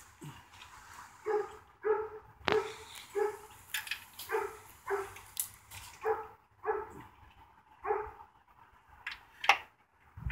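A dog barking repeatedly, short barks about two a second with brief pauses, and a couple of sharp clicks among them.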